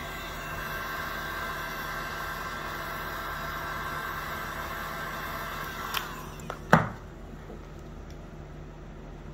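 Electric heat gun blowing with a steady fan whine, which stops about six seconds in. A click and then a loud thump follow as the gun is put down on the PVC truck curtain.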